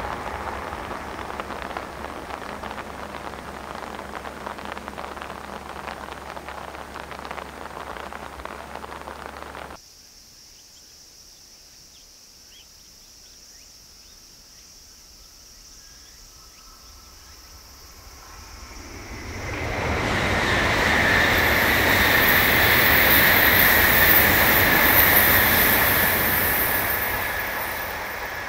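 A steady hiss fades slowly, then cuts off about ten seconds in to a faint high insect buzz. From about eighteen seconds a Tokaido Shinkansen bullet train approaches at speed, its running noise rising to a loud peak with a high whine, then easing off near the end.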